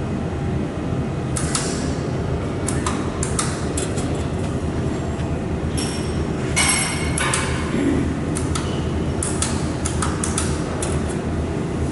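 Steady low hum of an industrial laser welding machine, with irregular clicks and knocks and a brief hiss about six and a half seconds in.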